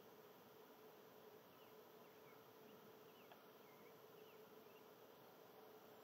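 Near silence: a faint steady hum and hiss, with a few faint, short high chirps about midway through.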